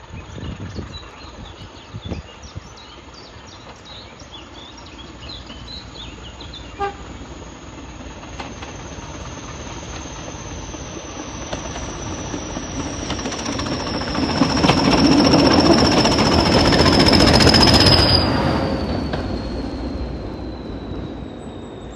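A first-generation diesel multiple unit approaches and passes close by: its diesel engines and wheels on the rails grow steadily louder to a peak about fifteen to eighteen seconds in, then fade as it runs away. Birds chirp faintly over the first few seconds, and a thin high whine slowly falls in pitch throughout.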